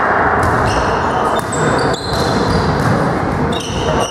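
Indoor volleyball rally in a sports hall: sneakers squeaking on the wooden floor several times and the ball being struck a few times, over a steady background din in the echoing hall.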